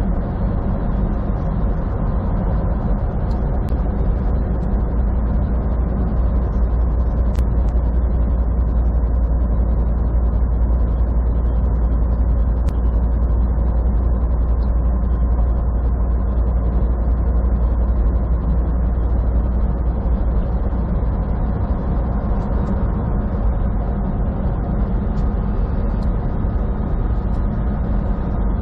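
Semi truck cruising at highway speed, heard from inside the cab: its diesel engine and tyres make a steady low drone with a few constant tones above it.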